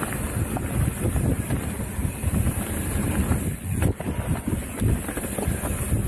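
Wind buffeting the camera microphone and mountain bike tyres rolling fast over a dirt trail, with irregular rattles and knocks from the bike over the bumps and one sharper knock about four seconds in.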